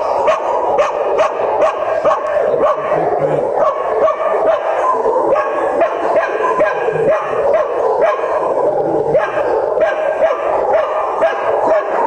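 Several kennelled shelter dogs barking at once, a constant overlapping chorus of barks at a few barks a second with no break.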